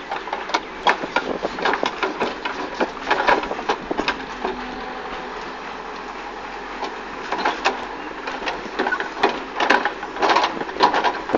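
Backhoe loader digging: its bucket and arm knock and scrape through the dry earth in two spells of rapid clatter, over the steady running of its diesel engine.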